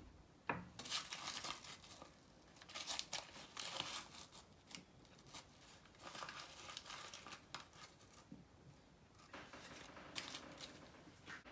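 Baking parchment paper crinkling and rustling as it is peeled away from a granola bar and folded in a baking dish, in about four spells with short pauses between.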